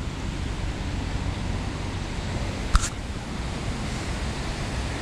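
Steady rush of wind on the microphone over water noise, with one sharp knock a little over halfway through.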